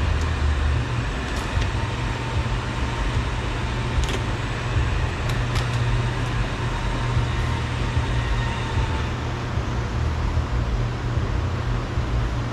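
Dodge Journey engine idling steadily, with a few light clicks of plastic door parts being handled.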